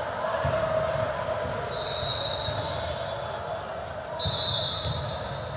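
Volleyball rally on an indoor court: a few sharp ball hits, and athletic shoes squeaking briefly on the court floor about two and four seconds in, over a steady hum.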